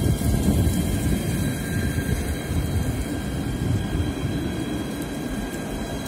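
Alstom Citadis 302 tram passing close by: a steady low rumble of wheels and running gear, with a few faint steady whining tones above it, easing slightly as the cars go by.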